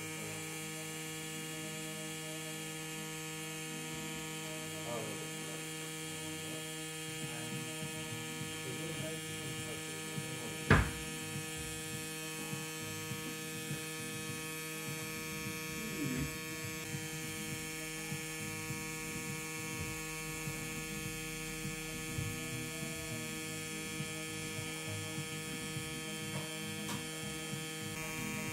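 FK Irons Xion pen-style rotary tattoo machine running with a steady electric hum while lining a tattoo. A single sharp click comes about eleven seconds in.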